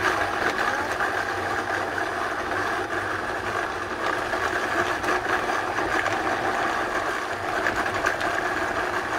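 Countertop blender motor switching on abruptly and running steadily, grinding dried chiles, garlic and whole spices in oil, with no water, into a thick paste.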